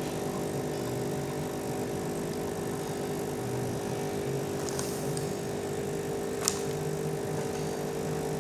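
Getra SN-3035S espresso machine's pump running with a steady hum as it pushes hot water through for tea, with a sharp click about six and a half seconds in.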